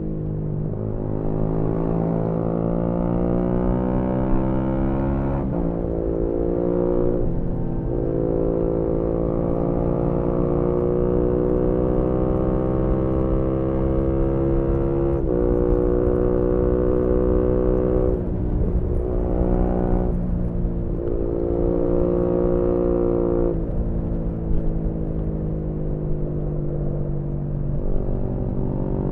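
Yamaha MT-125's single-cylinder 125cc engine through a GPR aftermarket exhaust, pulling hard as the bike rides twisty roads. Its pitch climbs steadily and drops sharply several times as the rider shifts gear or rolls off, over wind rushing on the microphone.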